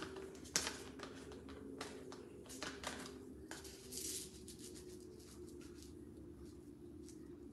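Kitchen work while cooking: scattered clicks and knocks of utensils being handled, with a few brief hissing or rustling bursts, over a steady low hum. The sharpest knock comes about half a second in.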